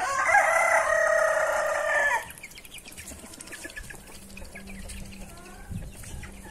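A rooster crows once, a long, loud call of about two seconds. It is followed by quieter clucking and short peeping calls from the poultry.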